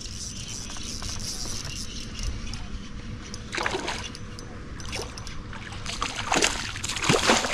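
Water sloshing around a small fishing boat, with a few short splashes about halfway through and near the end as a hooked bass is fought at the surface.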